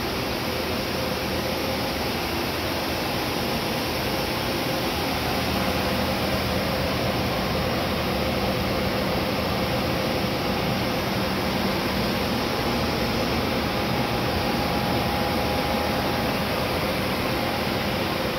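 Steady, even noise of a high-power TV transmitter plant running: the cooling fans, blowers and coolant pumps of the transmitter and its air-cooled dummy load, with a couple of faint steady hum tones in it.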